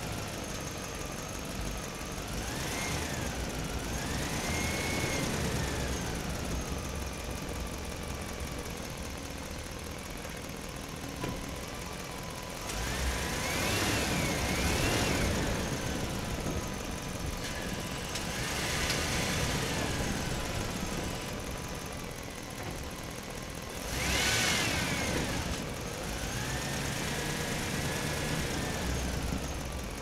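Truck engine running at low speed while manoeuvring, with a whine that rises and falls in pitch several times as it speeds up and slows down.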